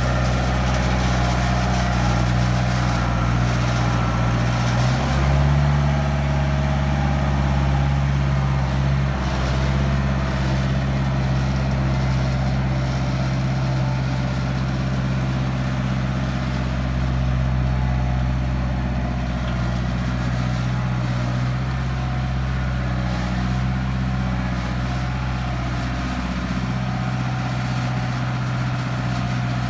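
International Harvester backhoe-loader's diesel engine running steadily; its pitch steps up about five seconds in and drops back about four seconds later.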